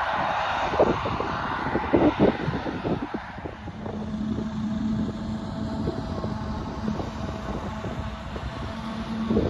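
Self-propelled forage harvester chopping standing maize, a steady mechanical drone carried across the field, with a few dull wind thumps on the microphone in the first seconds. About four seconds in it settles into a steady engine hum.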